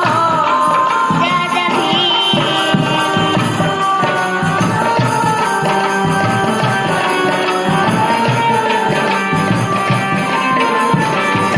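Music from a Hindi folk song: a melody over a steady percussion rhythm, with the tail of a sung line fading about half a second in and instruments carrying on after.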